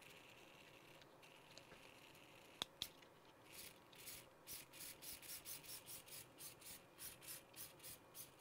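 Faint whir of a Traxxas 2080 micro servo's motor and freshly replaced plastic gears, coming in short pulses about three a second from roughly halfway through, with no grinding. Two small clicks come just before.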